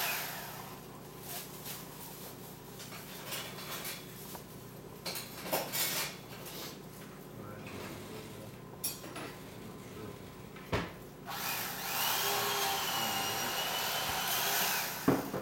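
Electric carving knife buzzing through a turkey, with a wavering whine; it runs for about three seconds near the end. Before that there is light kitchen clatter with a few knocks.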